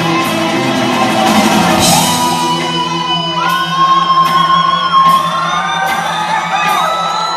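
Live band playing an electrified mariachi tune on electric guitars, drums and congas. Long held lead notes slide up and down over the band, with shouts over the music.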